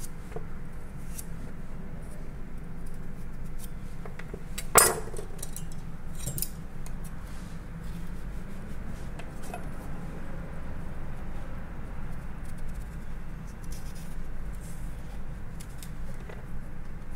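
Quiet knife work on a raw carrot: a chef's knife slicing and paring, with faint scattered clicks and one sharp knock with a short ring about five seconds in, over a steady low hum.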